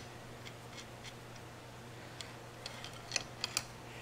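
Scattered light metallic clicks and taps of a pry bar being fitted against bolts threaded into a Ford 8.8 differential's pinion flange, with a few sharper clicks a little after three seconds in, over a faint steady hum.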